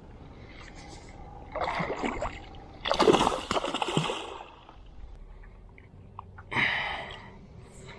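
A small hooked tarpon thrashing at the surface beside the boat, throwing water in three bursts of splashing, the loudest about three seconds in.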